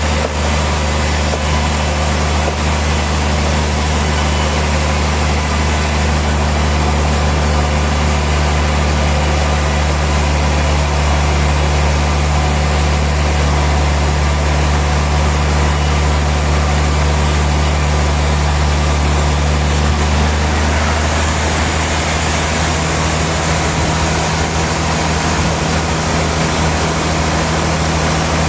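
Heavy sawmill machinery running steadily: a constant low hum with an even hiss over it, no distinct cuts or impacts.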